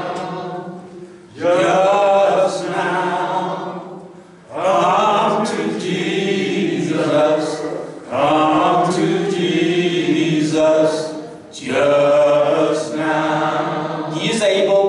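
A man singing a slow, repeated invitation call at the end of a sermon. Each long held phrase starts about every three and a half seconds, with short breaks between them.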